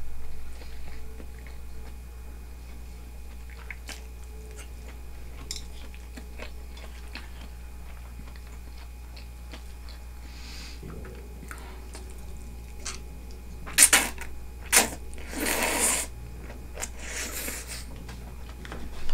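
Someone eating udon from a bowl: soft chewing and small clicks, then several loud slurps in the last few seconds.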